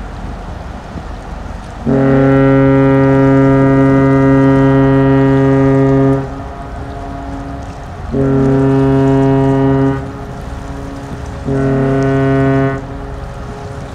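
Deep ship's horn of the thousand-foot Great Lakes freighter Paul R. Tregurtha sounding three blasts: one long blast of about four seconds, then two shorter ones. Wind and water noise lies between the blasts.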